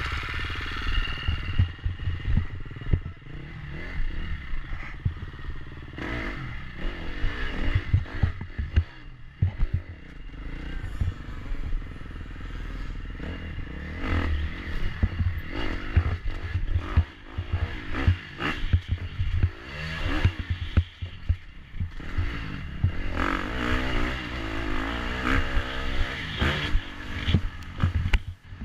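Dirt bike engine heard up close from on board, revving up and down in bursts as it is ridden hard over rough obstacles, with frequent knocks and clatter from the bike bouncing over the ground.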